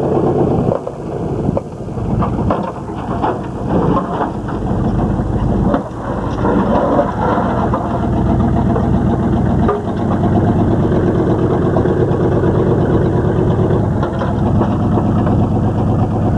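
A vehicle engine running as it drives slowly over rough ground, with knocks and rattles through the first part. From about ten seconds in the engine runs on at a steady, even note.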